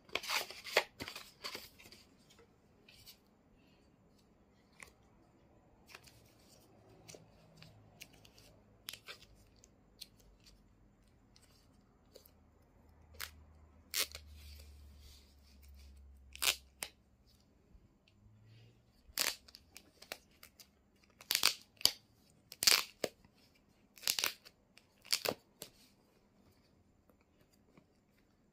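Paper packaging being opened by hand: a string of short crinkles and rips, thickest at the start and again in the last third, as the paper sleeve and protective wrap around a new tablet are peeled back.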